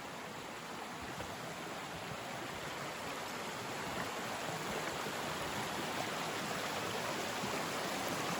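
Stream water rushing steadily, growing slowly a little louder.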